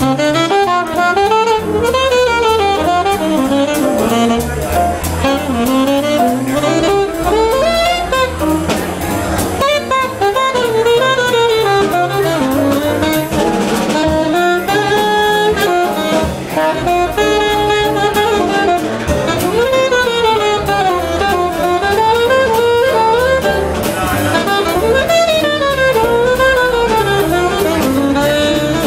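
Alto saxophone playing a winding jazz melody live, with the band's drums and piano behind it.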